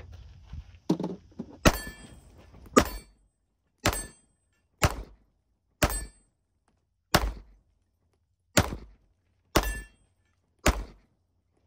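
Glock 19 9mm pistol fired nine times at a slow, steady pace of about one shot a second. A dull knock comes just before the first shot.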